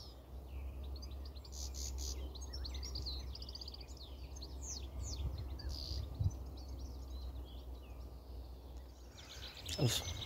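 Several songbirds singing and calling from the hedgerow, with many short chirps and trills throughout, over a steady low rumble. There is a brief knock near the end, as of the phone being handled.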